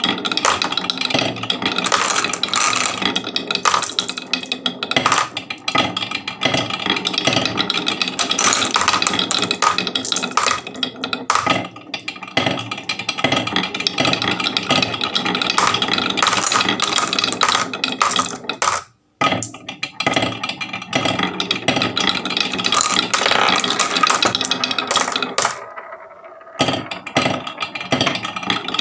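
Marbles clicking and rattling continuously down a wooden HABA marble run, over background music. About two-thirds through, the sound cuts out for a moment.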